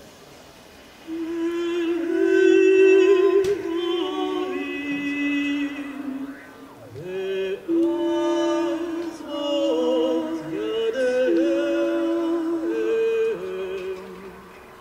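A woman singing long, held notes with vibrato, starting about a second in and fading out near the end.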